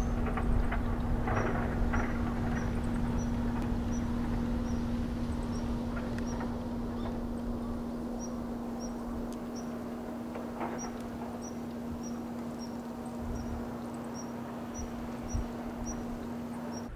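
Outdoor ambience: a steady low hum over a low rumble that fades slightly, with a faint high chirp repeating two or three times a second in short runs.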